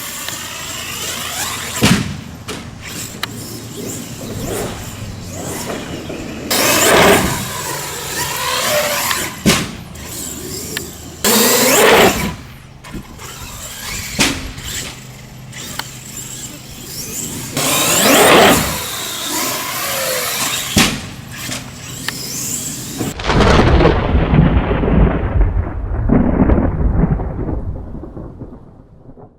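Electric RC monster truck motor whining and revving in repeated rises and falls, with sharp knocks of landings and crashes. About three quarters through, a deep thunder rumble takes over and fades out at the end.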